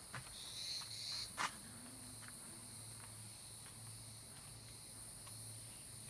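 Steady high-pitched chorus of insects, with a short louder chirp about a second in and a single sharp click about a second and a half in.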